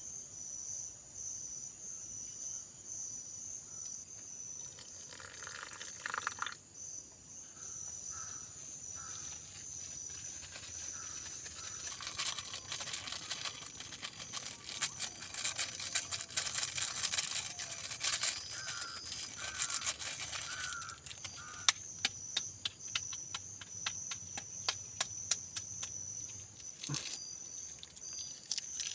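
Insects chirping steadily in a high, pulsing tone. From about twelve seconds in, a noisy stretch of rapid crackling taps sets in for several seconds, then scattered sharp clicks, one louder near the end.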